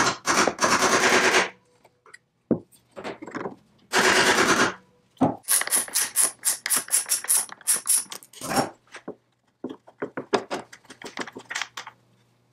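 Ratchet wrench with a socket clicking in several quick runs as bolts are backed out of a chainsaw engine's fan housing.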